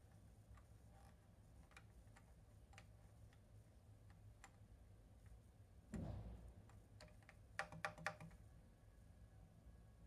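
Faint scattered ticks, a low bump about six seconds in, then a quick run of three or four sharp clicks about a second and a half later: handling noise and button clicks from a handheld Hohem M6 gimbal.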